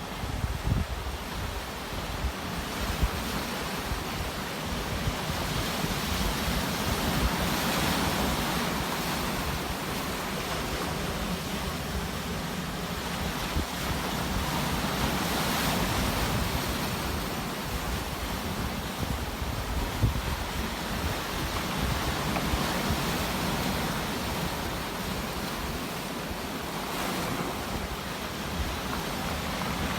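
Sea waves breaking and washing up the shore, a continuous surf hiss that swells with a new wave about every seven or eight seconds.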